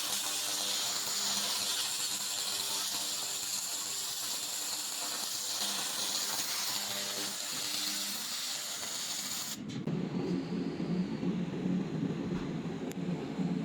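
Handheld fiber laser machine working metal with a steady high hiss. About ten seconds in, the sound cuts to a lower, rougher hum.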